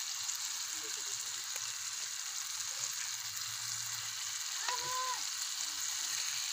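Onion-and-masala gravy sizzling and bubbling steadily in a steel frying pan as whole boiled potatoes are lowered in with a slotted steel spoon, with a few light clicks. A brief high-pitched call sounds about five seconds in.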